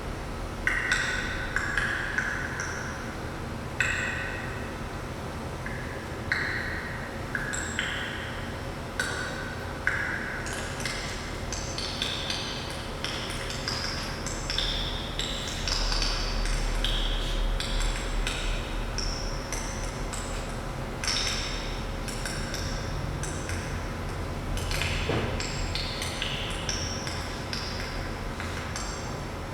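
100,000-year-old ice popping and cracking: irregular sharp pings and clicks, sometimes several a second, each ringing briefly at its own pitch.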